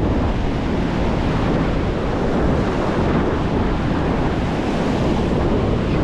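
Surf breaking on the beach with heavy wind buffeting the microphone, a steady loud rush.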